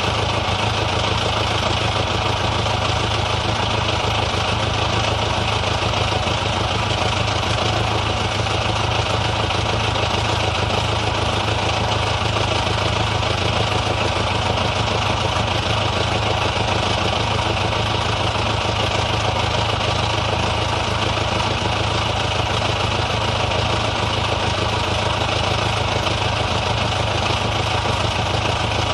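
Old car's engine idling steadily, with no revving or change in speed.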